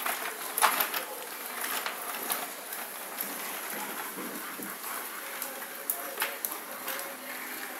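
Plastic baby walker rolling and knocking on a tiled floor: an irregular patter of clicks and knocks over a steady rustle.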